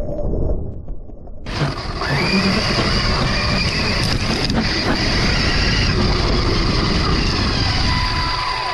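Arrma RC truck's electric motor and drivetrain whining, the pitch rising and falling with the throttle, over a rush of tyre and ground noise picked up by a camera mounted on the truck. The sound is muffled at first, then turns loud and full about a second and a half in.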